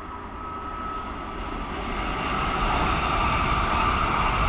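ICE high-speed electric train passing at speed. Its wheels on the rails and the air rushing along the cars make a loud rushing noise that swells over the first three seconds and then holds, with a steady high whine above it.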